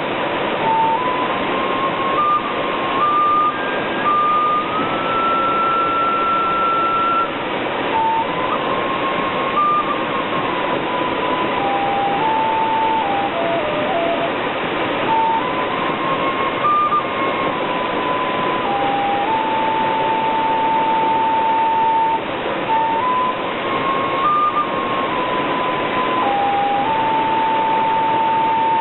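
A flute playing a slow, single-line melody of stepwise notes and long held tones, reaching its highest held note about five seconds in, over the steady rush of a waterfall.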